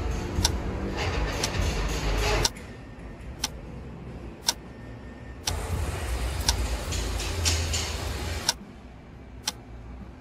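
A clock ticking sharply about once a second, over rumbling outdoor background noise that changes abruptly every three seconds or so.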